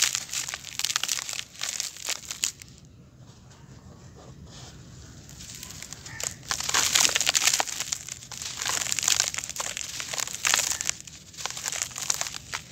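Handfuls of dry, gritty grey sand and dust crumbled and poured through fingers into a plastic basket: a dense, fine crackling of grains. It goes quiet for a few seconds about three seconds in, then comes back louder as a packed lump is squeezed and crumbled.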